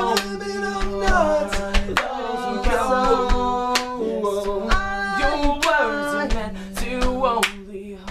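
Acoustic band playing a song: a singing voice over a steady held low note, with sharp percussive hits scattered through, growing briefly quieter near the end.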